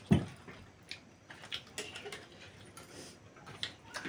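Eating sounds at a table: scattered small clicks and smacks from chewing and from spoons and fingers on plates, with one loud low thump just after the start.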